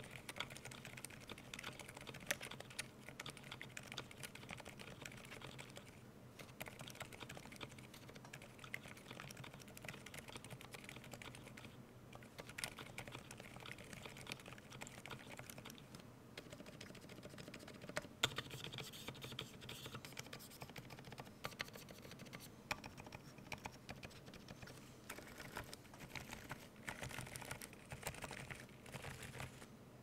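Continuous typing on a CannonKeys Rekt1800 mechanical keyboard fitted with silent switches (lubed, filmed Silent Alpacas) and GMK 8008 keycaps. The keystrokes are quiet, muffled taps in a dense, steady stream, with an occasional sharper, louder key strike.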